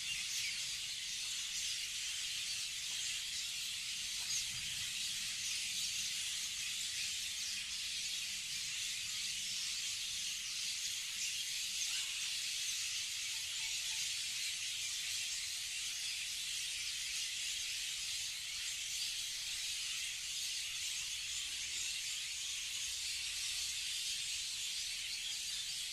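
Dense chorus of many small birds chirping at once in the trees, blending into a steady high twittering wash with no single call standing out.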